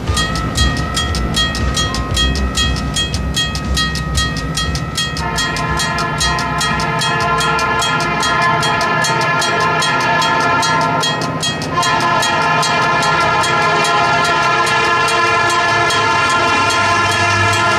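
A warning bell rings rapidly, about five strikes a second, as at a road crossing. From about five seconds in, a diesel locomotive's air horn sounds a long chord, breaks off briefly near twelve seconds, then sounds again while the approaching locomotive's engine rumble rises.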